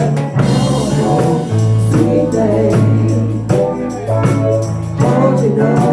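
A band playing a song: a singer's voice over a bass line that holds each note for a second or two, with percussion strikes.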